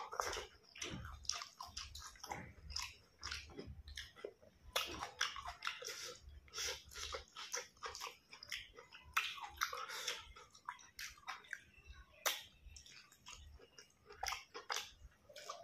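Close-up chewing and biting of boiled broccoli and rice eaten by hand: a quick, uneven run of wet mouth sounds, crunches and lip smacks.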